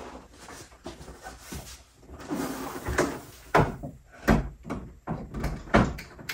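Hanging brackets on the back of a 55-inch flat-screen TV knocking and clunking against a wall mount as the TV is lifted and fitted onto it. A run of irregular sharp knocks starts about two seconds in, with about five loud ones.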